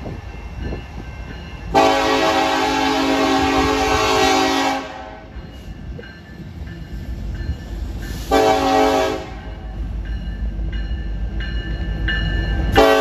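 Union Pacific diesel locomotives approaching and passing with a low engine rumble that grows louder. The lead locomotive's horn sounds a long blast of about three seconds, then a short blast, then a third blast starting near the end.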